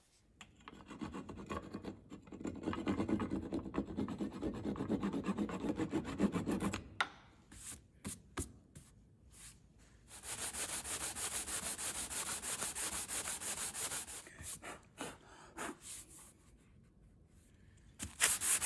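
Back-and-forth hand strokes cutting a wooden plug flush with a teak deck, running for several seconds. Then an electric orbital sander runs on the teak: a steady high hiss for about four seconds, starting again near the end.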